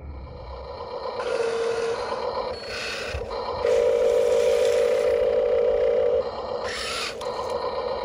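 Huina RC dump truck's electric tipper mechanism whining steadily, briefly about a second and a half in and then louder for a couple of seconds from about three and a half seconds, while gravel rattles and slides out of the tipped bed.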